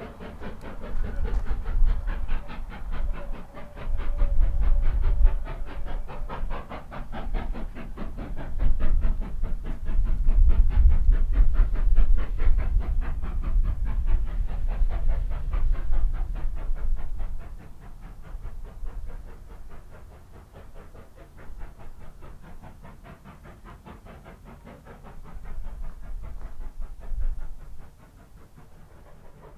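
Denver & Rio Grande Western K-36 narrow-gauge steam locomotive working, its exhaust beating in a fast, even chuff with steam hiss and rail noise. A heavy low rumble sits under it and eases off after about seventeen seconds, leaving the chuffing quieter.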